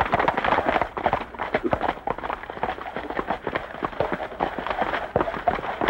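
Hoofbeats of several horses on a dirt trail: a dense, irregular clatter of many hooves.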